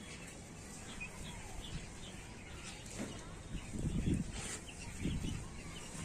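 Domestic chicks peeping in short, high, scattered chirps as they feed, with a few louder low, muffled noises partway through.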